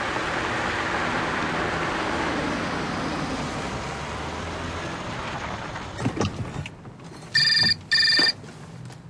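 Steady rushing noise that fades about six seconds in, then a telephone rings with two short warbling rings in quick succession near the end.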